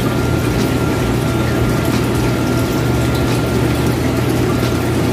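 A steady low hum with a rushing noise under it, unchanging throughout.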